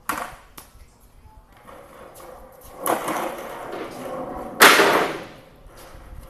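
Long wooden boards being handled on a steel lumber rack: a sharp knock at the start, then several seconds of boards scraping and sliding against each other and the rack, ending in a loud clatter of wood about four and a half seconds in, which echoes briefly.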